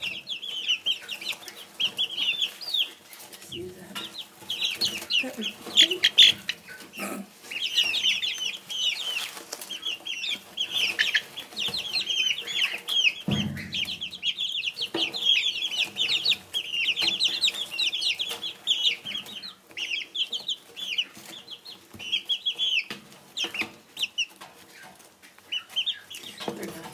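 Young bantam chickens peeping, a rapid, near-continuous run of short high chirps from several birds, with light pecking clicks in the shavings as they feed. A dull thump about halfway through.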